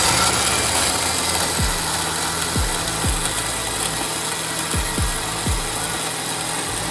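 Countertop blender running at speed, blending a pink drink in its glass jar: a steady loud whir with a few short low thumps.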